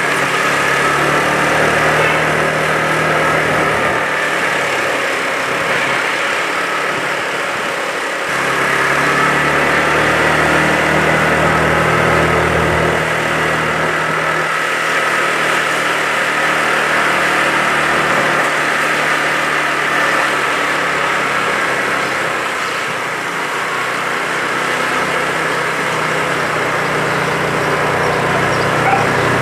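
Motor vehicle engine running steadily at low speed, its pitch drifting slightly up and down, with a short dip in level about eight seconds in.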